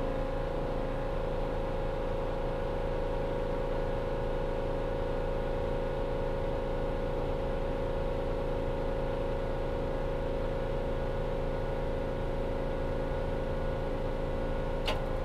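Atwood Hydroflame 8520 RV propane furnace running on a test fire, its blower fan giving a steady hum and whir. A single sharp click sounds near the end.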